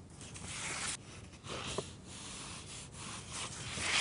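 Drawing tool stroking across construction paper, several scratchy strokes, the loudest just before the end.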